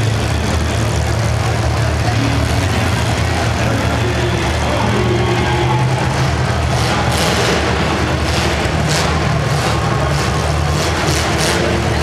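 Several demolition derby cars' engines idling together with a steady low rumble. From about seven seconds in, repeated short sharp bursts of noise join in.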